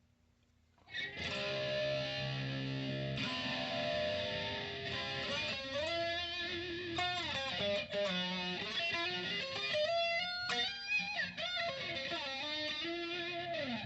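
Distorted electric guitar played through a STRICH analog flanger pedal, with the colour (feedback) knob turned back up and the sweep range changed. Held chords start about a second in, then single-note lines with string bends, stopping just before the end.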